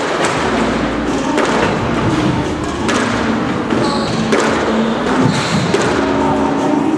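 A squash ball struck by a racquet and smacking off the court walls, a sharp thud every second or so during a solo warm-up rally.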